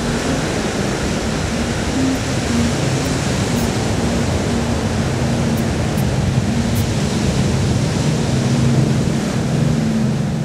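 Ocean surf breaking and washing in the shallows, a steady loud wash of noise, with low stepped notes of background music under it.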